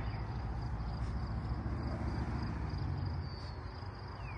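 Steady high chirring of insects over a low outdoor rumble.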